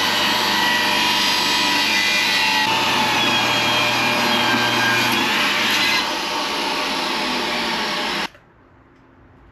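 An electric power tool runs steadily for about eight seconds with a whine that steps slightly in pitch twice, then cuts off suddenly.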